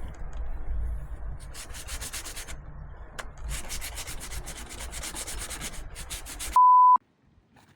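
Teak being sanded: rasping sanding strokes over a low steady hum, turning into rapid rhythmic strokes in the second half. A short high beep tone cuts in near the end.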